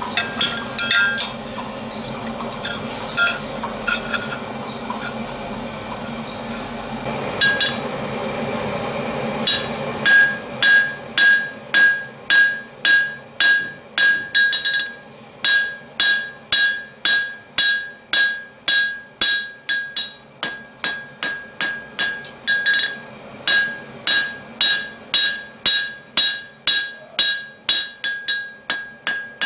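A hand hammer striking hot steel on a blacksmith's anvil in steady blows, about two a second, each with a bright ringing tone from the anvil, with two short pauses along the way. For roughly the first ten seconds there are only a few scattered metallic clinks over a steady rushing noise.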